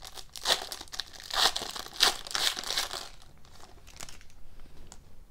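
Foil trading-card pack wrapper crinkling in bursts as it is torn open and peeled back, followed by a few faint clicks after about three seconds.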